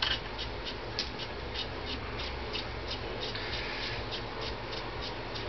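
Ratcheting wrench clicking in a steady run of short ticks, about four a second, as a bolt is worked out of a sandy thread in an aluminium engine crankcase.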